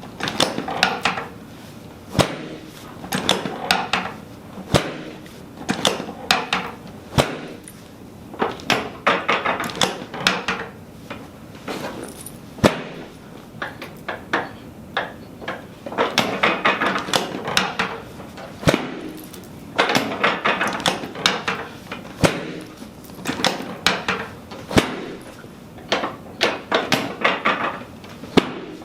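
Sharp single knocks every few seconds, between stretches of rapid clicking, from chiropractic adjusting equipment at work on the treatment table.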